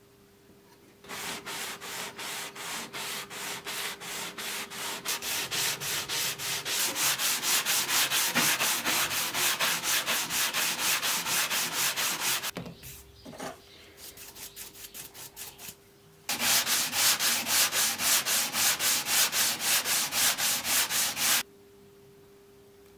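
Abrasive sanding sponge rubbed briskly back and forth on the wooden body of an old hand plane, about four strokes a second. It comes in three bouts: a long one, a short quieter one, and a loud last one that stops suddenly near the end.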